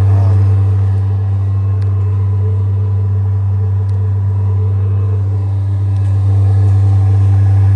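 Chinese copy of a Truma Combi D6E diesel combination air and water heater running with its diesel burner and electric element together and its blower on, giving a steady, resonant low drone with a few overtones above it. It dips a little in loudness for a few seconds in the middle.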